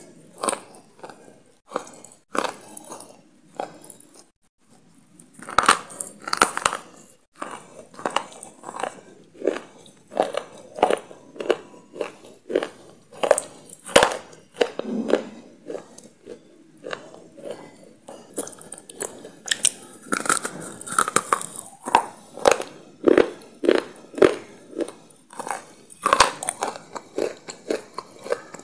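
Close-miked chewing of a hard, crunchy food: crisp, irregular crunches, a couple or more a second, with a short pause about four seconds in.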